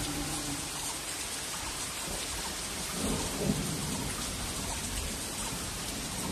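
Steady heavy monsoon rain, an even hiss of rain falling, with a brief low rumble swelling about three seconds in.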